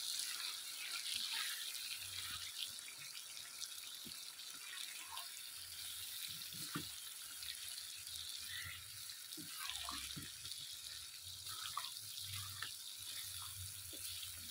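Chicken pieces with fresh tomatoes and green chillies sizzling in hot oil in a pan, a steady hiss, with a spatula stirring and scraping against the pan now and then.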